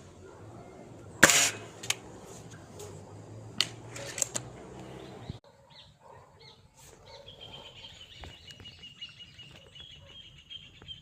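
Kral Arms N-03 air rifle firing a single pellet shot about a second in: a sharp crack with a short ringing tail. A few smaller clicks and knocks follow. After an abrupt change in the audio about halfway through, a faint, high, steady tone with light ticks runs to the end.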